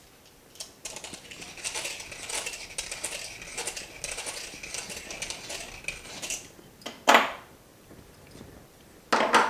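Handheld deburring tool scraping around the inside of a hollowed 50 New Taiwan dollar coin in rapid repeated strokes, shaving away the last of the inner rim. Two loud sharp knocks follow near the end.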